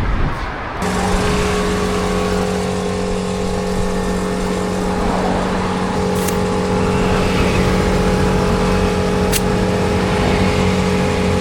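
An engine running steadily at an even, unchanging pitch that comes in sharply just under a second in. Two short sharp clicks sound over it.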